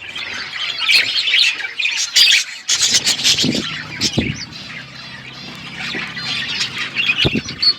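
A group of budgies and lovebirds chirping and squawking continuously, many calls overlapping, with a few sharp clicks among them.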